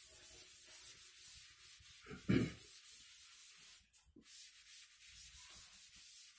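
Blackboard duster wiping chalk off a blackboard: a faint scratchy hiss in quick repeated strokes, pausing briefly about four seconds in. A single short thump about two seconds in is the loudest sound.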